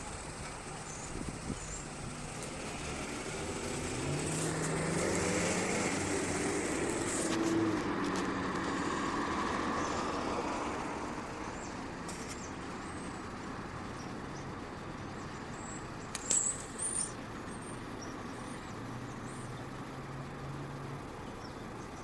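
Outdoor ambience with a motor vehicle going by: its engine grows louder over the first few seconds, peaks, and fades away by about halfway. A few short, sharp high-pitched sounds come later.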